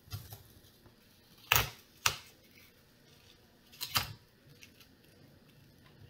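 Thin black plastic sticker being peeled back off a laptop motherboard: a few sharp crinkling clicks, about a second and a half in, at two seconds and near four seconds, with faint rustling and small ticks between.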